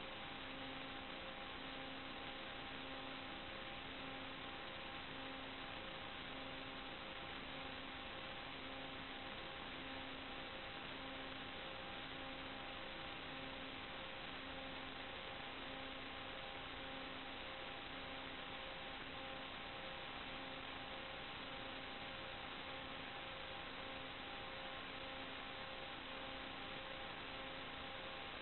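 Steady electrical hiss with faint steady hum tones and a soft low tone pulsing about once a second. This is noise on the audio channel of the FPV video recording; no motor or propeller sound is heard.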